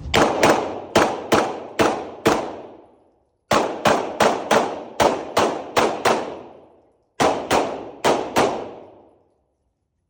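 Pistol fired rapidly in three strings, about six shots, then eight, then four, with a short pause between strings; each shot trails off in reverberation.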